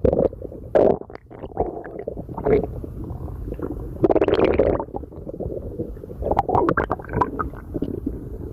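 Human stomach gurgling and rumbling with active digestion in a bloated belly: an uneven run of bubbling gurgles, with a louder surge about four seconds in.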